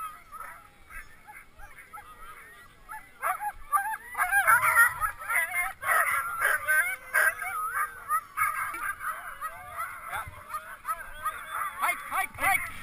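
A chorus of many harnessed sled dogs yelping and howling together, eager to run while held at the start. It grows much louder about three seconds in.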